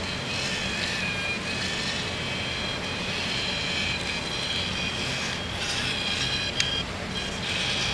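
RC hobby servos whining on and off as they drive the stabilised camera mount while the plate is tilted by hand, over a steady low rumble. A single sharp click a little over six and a half seconds in.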